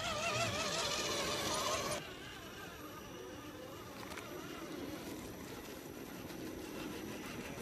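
Music with a wavering vibrato melody cuts off abruptly about two seconds in. After it comes the quieter, steady running noise of a radio-controlled scale truck's electric motor and drivetrain.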